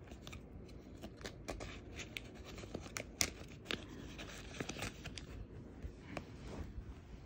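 Plastic binder sleeves crinkling and clicking as the pages of trading cards are handled, with many short, sharp crackles at irregular intervals.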